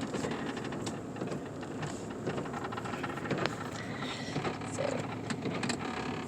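Steady road and wind noise inside a car driving through a blizzard, with scattered sharp ticks.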